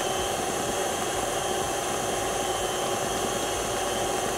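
KitchenAid tilt-head stand mixer running steadily at high speed, a constant motor whine as its flat beater whips royal icing toward stiff peaks.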